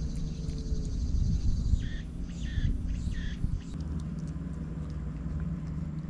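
Maltese dog biting, tearing and chewing a grass stalk over a low rumble of wind on the microphone. Three short high calls sound about two seconds in.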